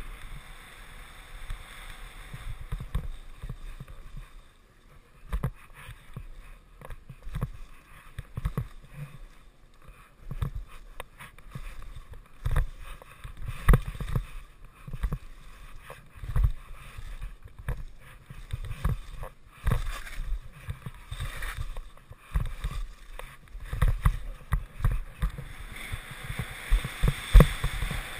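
Skis scraping and chattering over packed snow and moguls, with irregular low thumps and knocks, about one or two a second, as the skis hit the bumps, under a hiss of wind that swells near the start and the end.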